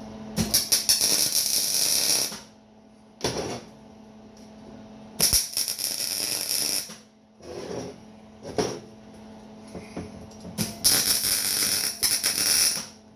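Arc welder laying three tack welds on sheet steel, each a crackling, sizzling burst of a second or two, about five seconds apart. A steady low hum runs underneath, with a couple of single knocks between the welds.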